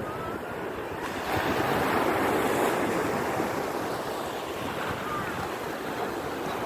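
Surf breaking and washing up over the sand, swelling about a second in and then slowly easing off.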